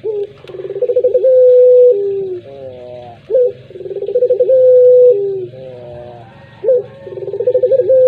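Puter pelung (domestic collared dove) cooing three times. Each coo starts with a fast stuttering rattle, runs into a long held note, then drops lower at the end, about every three seconds.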